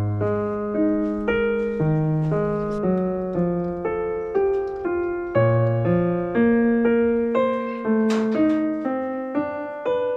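Calm background piano music, single notes and chords struck at an even pace of about two a second.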